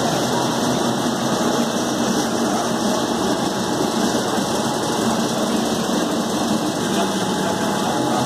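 6YL120 screw oil press running steadily while pressing rapeseed, its motor and pressing screw giving an even mechanical drone.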